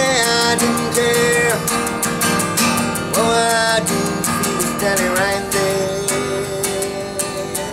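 Acoustic guitar played live, strummed chords carrying the song between sung lines, with held melody notes that slide in pitch above the chords.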